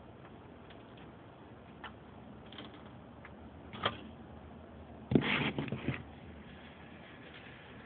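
Low steady hiss with scattered faint clicks, one sharper click about four seconds in, then a short cluster of louder knocks lasting under a second.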